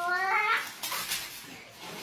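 A short voice-like call rising in pitch, ending about half a second in, followed by about a second of rustling noise.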